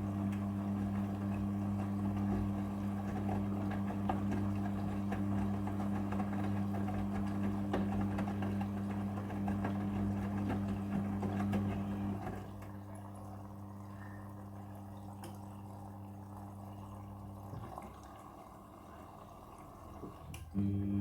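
Midea front-loading washing machine in its prewash, humming steadily with water rushing through it. The hum drops off about twelve seconds in, stops for a few seconds, then starts again sharply near the end.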